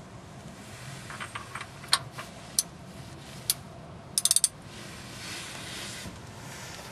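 3/8-inch-drive ratchet clicking as it turns a 22 mm deep socket on the oil cooler's centre bolt: a few separate clicks, then a quick run of clicks about four seconds in.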